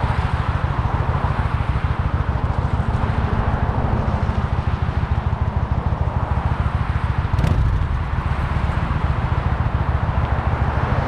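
Kawasaki Vulcan 900's V-twin engine running steadily at low speed under way, with wind rushing on the microphone. A brief sharp knock about seven seconds in.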